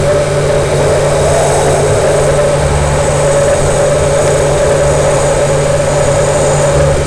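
A loud, steady, distorted drone made of two held tones, one low and one mid, over a noisy hiss. It ends suddenly.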